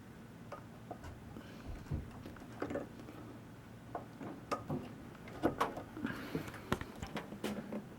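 Irregular light clicks and knocks of an old Lakewood electric fan being handled and switched on, over a faint steady hum.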